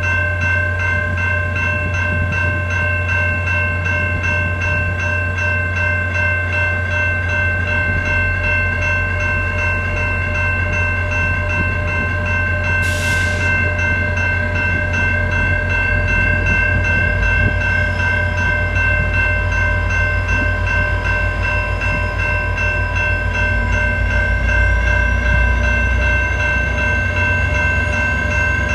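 Level-crossing warning bell ringing continuously over the steady low rumble of a VIA Rail passenger train's diesel locomotive. The rumble grows louder about halfway through as the train starts pulling out toward the crossing, and there is one short hiss near the middle.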